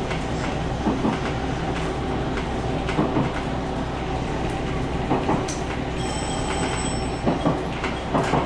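Diesel express railcar rolling slowly over rail joints and points, heard from the driver's cab: irregular clacks from the wheels over a steady low engine hum, with a faint high-pitched wheel squeal from about six seconds in lasting just over a second.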